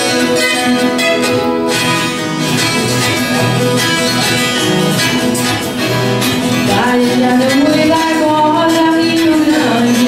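Two violas caipira (ten-string Brazilian folk guitars) played together in a pagode caipira. In the second half, two voices join in and sing together over the strings.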